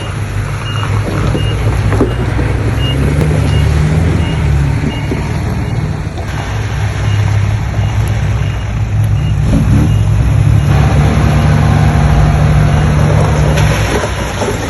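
Heavy diesel earthmoving machinery running loudly, the engine note rising and falling as it works under load. A reversing alarm beeps steadily in the first couple of seconds.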